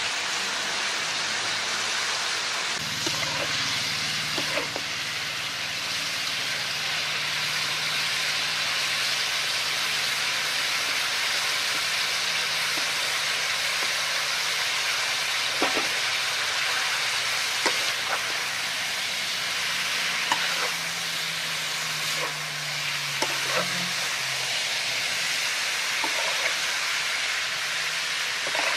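Food sizzling steadily in a hot wok as pig blood cubes and bean sprouts are stir-fried. A metal spatula knocks and scrapes against the wok every few seconds.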